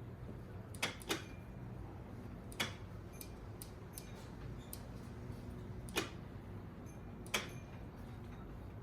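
Bang & Olufsen Beocord 5000 cassette deck giving sharp clicks, about five at irregular intervals over a low hum, as its belt-driven opening mechanism tries to open and fails: the mechanism is stuck.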